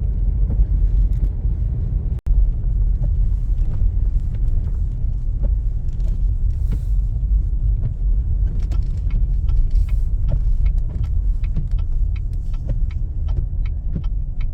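Car driving, heard from inside: a steady low road rumble, with many light, sharp ticks that come more often in the second half.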